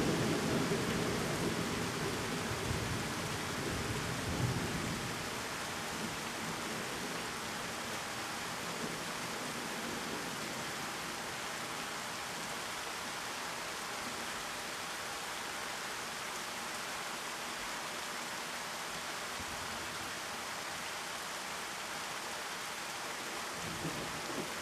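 Heavy rain pouring steadily. A low thunder rumble dies away over the first few seconds, leaving the even hiss of the rain.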